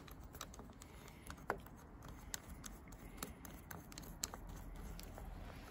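Faint, scattered small clicks and taps of fingers handling a motorcycle front brake master cylinder and its clamp bracket and bolt as they are fitted to the handlebar.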